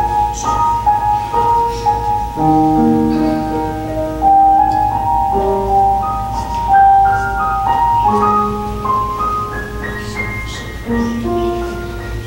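Slow instrumental piano music: a melody of held notes over chords, with a steady low hum beneath.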